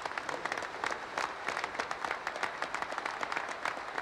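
Large audience applauding, a dense, steady clatter of many hands clapping.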